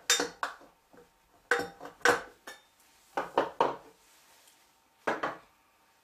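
A knife blade prying at the metal lid of a tin of gunpowder: metallic clinks and scrapes in four short bursts.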